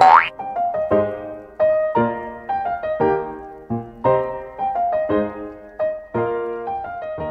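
Background piano music playing a steady run of notes, about two a second. Right at the start a short tone glides sharply upward over it.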